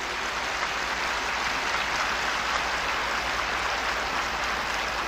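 A very large crowd applauding, a dense, even clatter of clapping that swells over the first second or two and then holds steady.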